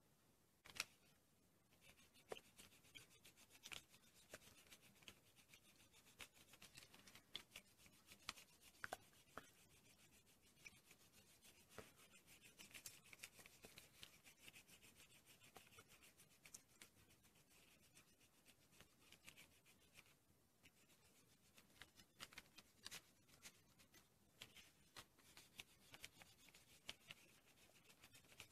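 Faint rubbing of a block eraser on paper, erasing pencil lines, with many small scattered clicks and taps.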